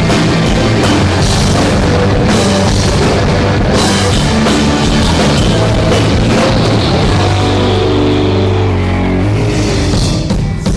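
Rock band playing loud, with drum kit and distorted guitar, during a concert sound check.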